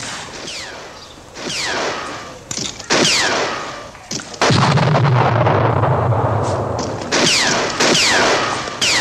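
Gunfire sound effects: sharp shots about every second, each trailed by a falling whine like a ricochet. About four and a half seconds in comes a louder hit with a low rumble that lasts about two and a half seconds.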